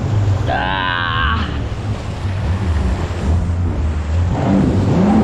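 Yamaha VX Cruiser jet ski's engine running under load while towing a boat through choppy sea, its pitch wavering, over rushing water and wind. A short warbling sound comes about half a second in.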